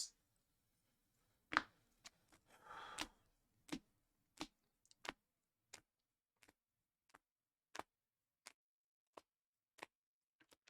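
Faint, sharp clicks of trading cards being laid down one at a time, about one every two-thirds of a second, with a short rustle near the start.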